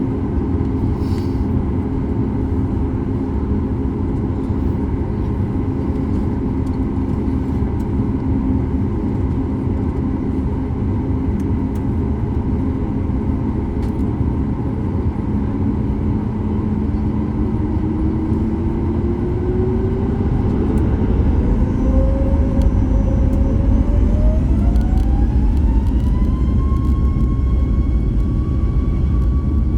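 Cabin sound of a Boeing 737 MAX 8's CFM LEAP-1B engines spooling up for takeoff: a steady low rumble, then a whine that rises in pitch from about halfway through, grows louder, and settles on a high steady note near the end.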